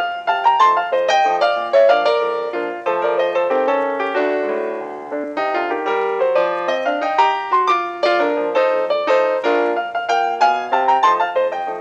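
Background music: a piano playing a quick, steady flow of notes.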